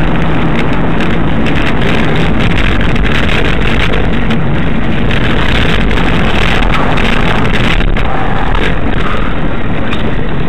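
Steady loud driving noise of a car heard from inside the cabin: engine hum under heavy road and wind noise, with no clear impact.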